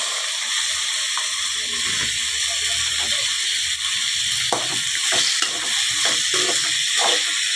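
Chopped onions and tomatoes sizzling in hot sesame oil in an aluminium kadai, with a steady hiss. From about halfway on, a steel spoon scrapes and clicks against the pan several times a second as the vegetables are stirred.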